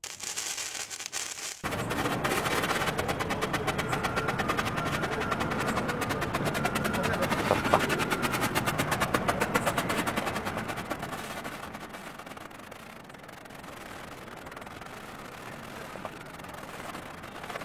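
Silver Flash ground firework fountain (white blinking star) burning: a short quieter fizz, then about two seconds in it catches fully and hisses with rapid, dense crackling. Near the end it dies down to a quieter fizz.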